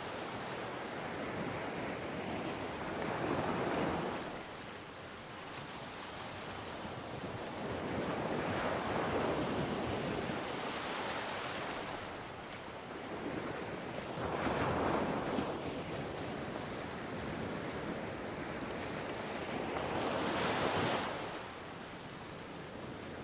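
Ocean waves washing in. Four swells of surf rise and fall, about one every five to six seconds.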